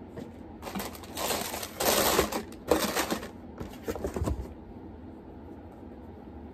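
Sneaker-box tissue paper rustling and crinkling in several bursts as it is handled, stopping about four and a half seconds in.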